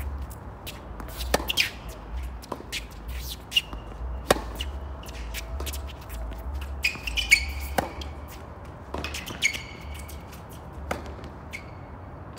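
Tennis rally on a hard court: sharp pops of rackets striking the ball and the ball bouncing, a second or more apart, with sneakers squeaking briefly on the court surface several times.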